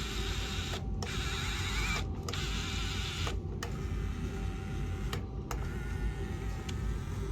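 Small electric gear motors of a toy remote-control excavator whirring in short runs, stopping briefly about four times and starting again as its functions are worked.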